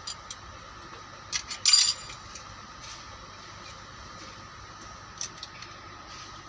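Metal hand tools clinking on a bus engine during a valve clearance adjustment: a few sharp clinks about a second and a half in and another near five seconds, over a steady background hum.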